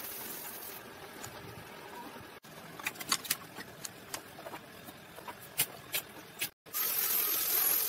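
Workshop work noises: scattered sharp taps and clicks over a low rustling, then a loud hiss starting about a second before the end.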